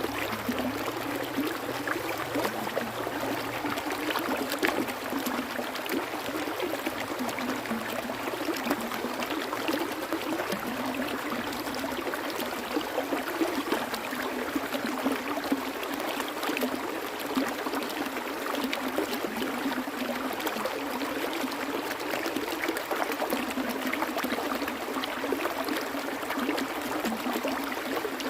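Water flowing steadily in a stream, a constant rush dotted with many small splashes and trickles.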